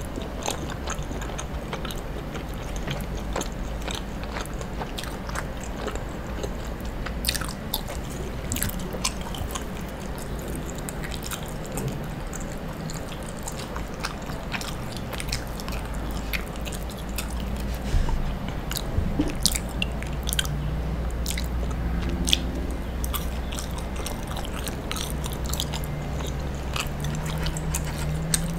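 Close-up chewing of soft, sticky toasted mochi, with many small wet mouth clicks and smacks. A steady low hum runs underneath.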